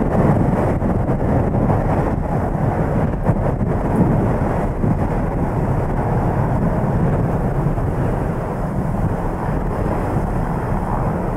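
Gusty wind buffeting the microphone, with the twin turboprop engines of a taxiing Beechcraft King Air 200 running beneath it.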